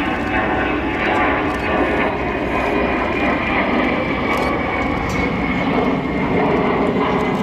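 Antonov An-178's two turbofan engines flying past overhead: a loud, steady jet rumble with a high whine that slowly falls in pitch.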